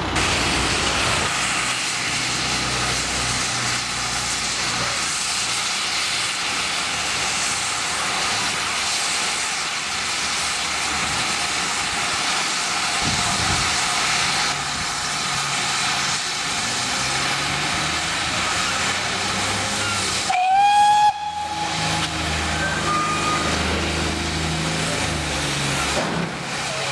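Steam locomotive hissing steadily with escaping steam, with one short whistle blast about twenty seconds in, the loudest sound. A low rumble follows the whistle as the engine moves.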